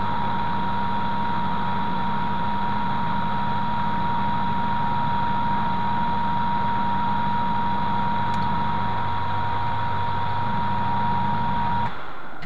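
Hafco AL336 metal lathe running with its chuck spinning: a steady mechanical hum with a clear high whine over it. The sound cuts off suddenly near the end as the lathe is switched off.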